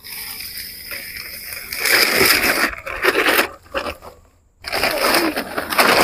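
Plastic bag crinkling and rustling in uneven bursts as it is handled. It is loudest about two seconds in and again in the last second and a half.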